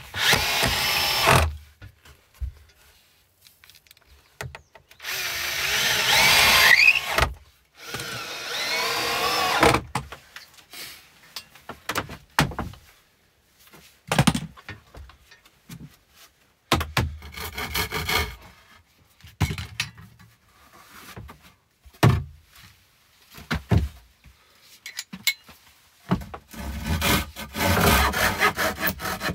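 Bosch cordless drill-driver driving screws into pine boards in three long runs, the motor whining up in pitch as the screws bite, with short knocks of wood being handled in between. Near the end a handsaw rasps back and forth through a pine board.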